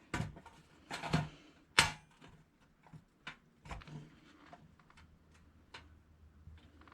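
Scattered light clicks and knocks of the toy oven's metal heating-assembly parts being handled on the bench, with one sharper knock just under two seconds in.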